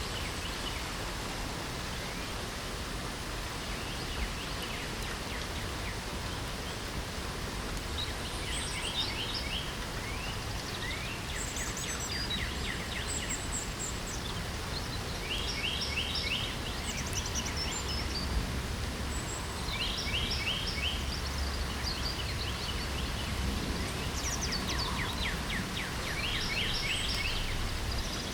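Steady hiss of light rain, with songbirds singing brief phrases of rapid trilled notes every few seconds from about a quarter of the way in.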